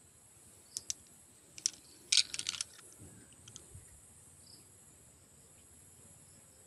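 Small green glass bottles clicking against each other as they are handled in the hand: a few light clicks, then a quick run of clinks about two seconds in.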